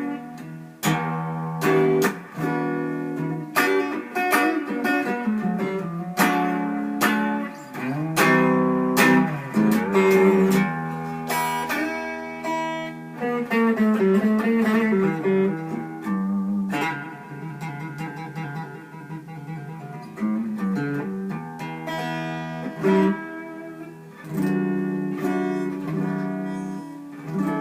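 Clean electric guitar, picked single notes and chords with reverb, played through a small single-ended 6V6 tube amp running at about 90 volts into a Vintage 30 speaker. Some notes waver with bends or vibrato around the middle.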